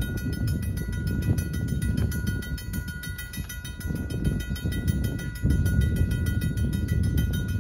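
RACO mechanical crossing bell ringing fast, a rapid even run of strikes with a steady ringing tone, sounding the crossing's warning for an approaching train.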